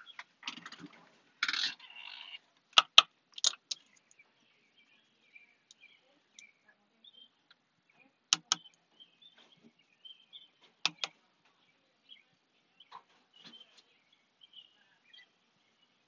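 Sharp clicks, mostly in close pairs, every few seconds, with birds chirping faintly in the background.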